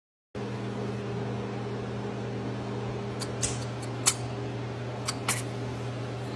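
A steady low hum, like a fan or appliance running, with a handful of short sharp clicks about three to five seconds in.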